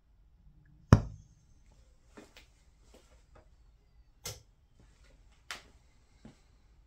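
Clicks and knocks from handling a homemade Döbereiner hydrogen lighter. The loudest is a sharp pop with a low thump about a second in, as its luer valve is worked and the hydrogen jet lights. Two more sharp clicks and several faint ones follow.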